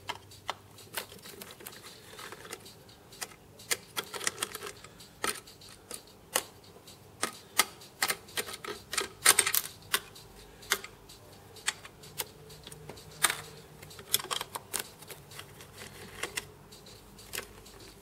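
Irregular sharp clicks and taps of a screwdriver working out self-tapping screws from a circuit board inside a PTZ camera housing, with the small parts being handled.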